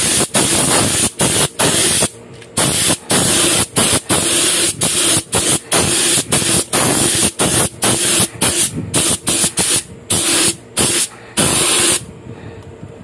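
A gravity-feed compressed-air spray gun hissing as it sprays paint onto a brake drum. The hiss comes in short bursts with many brief breaks as the trigger is let off, and it stops near the end.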